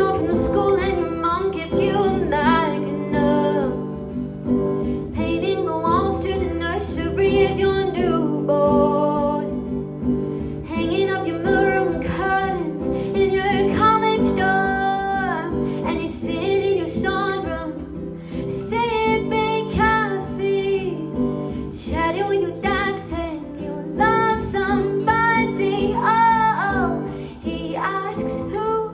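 Live song: a woman singing over a plucked guitar accompaniment.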